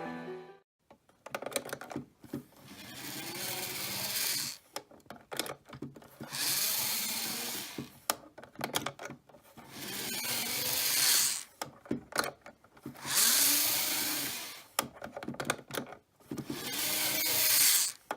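N gauge model train motor car running on and off in about seven runs of one to two seconds each. A high whirring noise rises and falls in pitch, with clicks between the runs. This is the kind of abnormal running noise the uploader traces in most cases to the motor's worm gear.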